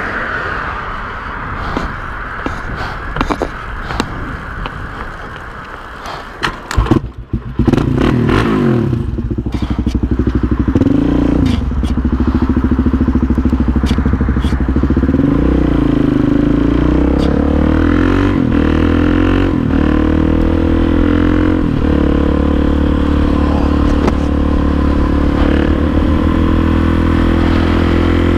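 Suzuki DR-Z400SM's single-cylinder four-stroke engine being push-started after refusing to start: rolling, scraping and knocking while the bike is pushed, then about seven seconds in a few sharp clacks as the engine catches. It revs up and down, then settles into steady running as the bike is ridden.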